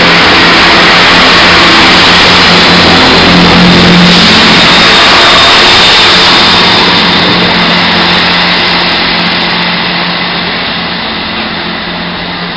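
Chiltern Railways diesel multiple unit pulling out past the platform, its engines running loud with a steady low hum. The sound fades gradually from about halfway through as the train draws away.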